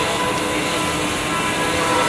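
CNC machining center running: a steady whine of several held tones over constant machine noise.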